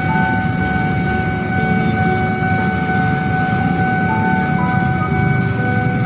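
Freight train of container wagons passing, a steady low rumble, with a steady high electronic tone and short shifting notes sounding over it.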